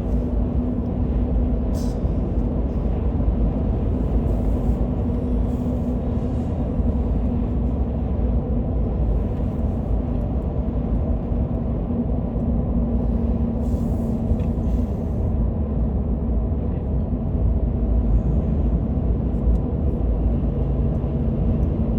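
Steady low road rumble and engine hum of a car driving on the highway, heard from inside the cabin.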